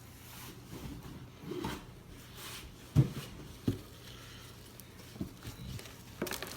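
Scattered dull knocks and thumps of hands working dirt and objects. The loudest thump comes about three seconds in, with a smaller one just after.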